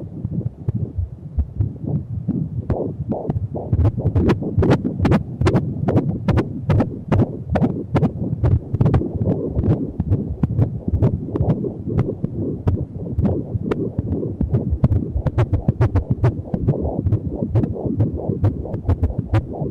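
Pulsed-wave Doppler ultrasound audio of a six-month fetus's heartbeat: a fast, regular whooshing pulse at about two to three beats a second.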